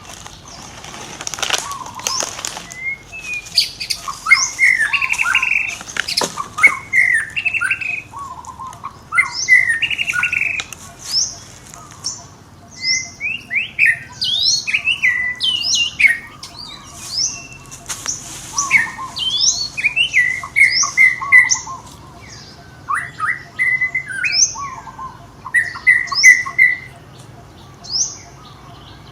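Many short, high-pitched chirping and squeaking calls that slide up and down in pitch, coming in quick runs with brief gaps, several voices at once at times; a few sharp clicks in the first few seconds.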